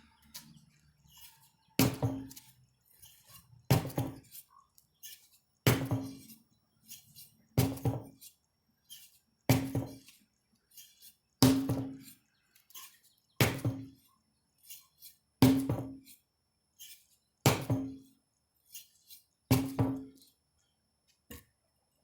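A 25 lb sledgehammer landing ten heavy strikes, one about every two seconds, each blow followed by a brief low ring, with small knocks in between.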